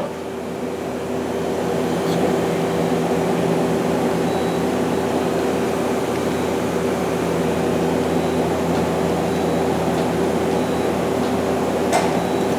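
Okuma LB200MW CNC lathe running with a steady machine hum made of several steady tones, swelling over the first couple of seconds as the sub spindle is moved along its W axis with the door shut. A short click comes near the end.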